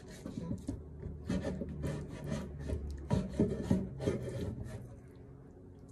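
Kitchen knife slicing through raw chicken on a wooden cutting board: irregular scraping strokes with light knocks of the blade on the wood.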